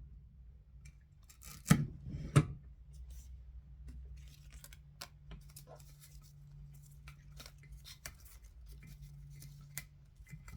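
Scissors snipping and handling paper or craft material in irregular small clicks, with two louder sharp knocks about two seconds in. A low steady hum runs underneath.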